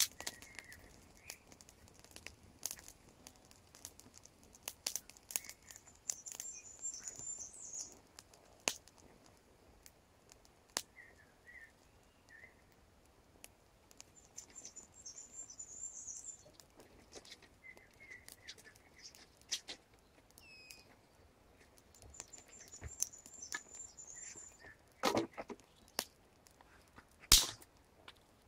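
Small stick campfire crackling, with scattered sharp pops and two louder cracks near the end. A small bird sings high twittering trills in four short spells.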